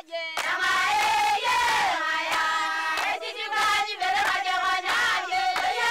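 A group of women singing together, several voices at once.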